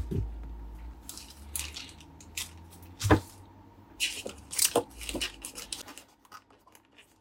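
Hands handling a plastic-wrapped figure and accessories in a foam packaging tray: plastic wrap crinkling and scraping against the foam, with a few short knocks, the sharpest about three seconds in.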